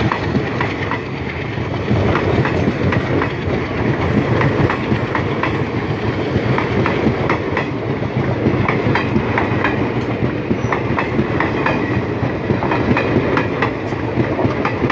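Passenger train passing close by: a steady, loud rumble of the coaches with the repeated clickety-clack of wheels over rail joints.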